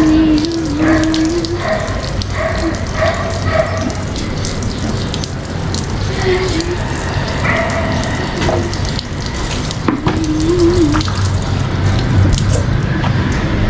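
Water running steadily from a tap, with a tune heard now and then over it.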